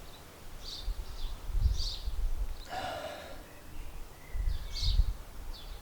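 Outdoor ambience: gusts of wind rumbling on the microphone, with birds chirping several times, and one brief louder sound about three seconds in.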